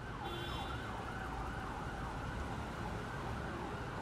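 Emergency-vehicle siren wailing in a fast repeating up-and-down glide over a low city rumble.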